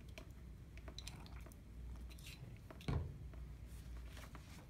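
Faint squirting and squishing as a plastic wash bottle is squeezed to soak filter paper in plastic petri dishes, with light clicks of handling. A dull thump comes about three seconds in.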